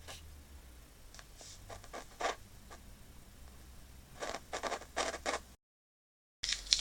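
A few faint scrapes and clicks, as of metal parts being handled on a workbench, a cluster of them about four seconds in; the sound then drops out completely for a moment at an edit cut.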